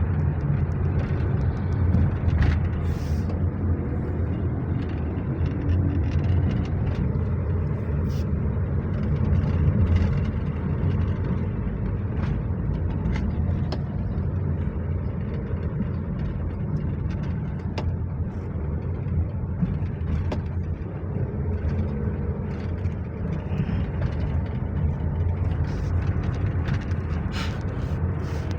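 Honda BR-V running, a steady low drone of engine and road noise with scattered light clicks and knocks.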